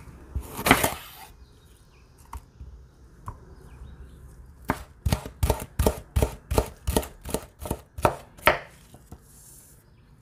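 Chef's knife cutting a red bell pepper on a wooden cutting board. One long slicing cut comes about half a second in. Later a rapid run of about fifteen chops, about five a second, dices the pepper strips into cubes.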